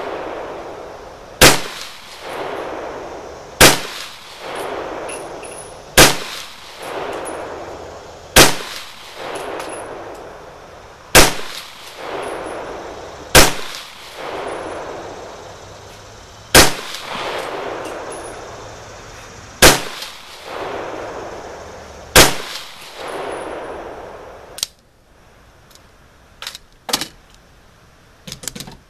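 300 Blackout AR pistol fired nine times in slow, aimed fire, a shot about every two and a half seconds. Each shot is followed by a long echo that dies away over about two seconds. Near the end the shooting stops, leaving a few small clicks.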